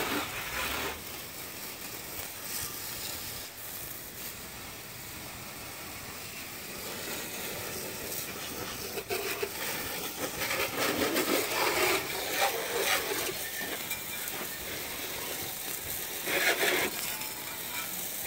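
Garden hose spray nozzle spraying water onto a zero-turn mower and the concrete under it: a steady hiss and patter of spray, with the water hitting harder in a few stretches.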